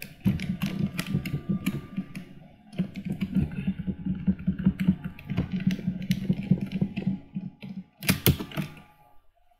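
Computer keyboard being typed on: a fast, irregular clatter of key clicks, with a short lull a little before the third second and two sharper clicks about eight seconds in.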